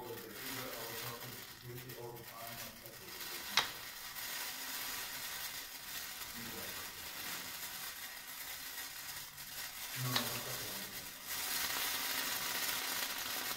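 Steady sizzling hiss from a stainless pot of water and ice cubes heating on a hot radiant ceramic hob. The hiss grows louder near the end. Two sharp clicks come about six seconds apart.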